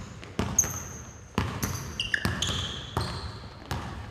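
Basketball bouncing on a hardwood gym floor in a few irregular thuds, with sneakers squeaking in short high chirps.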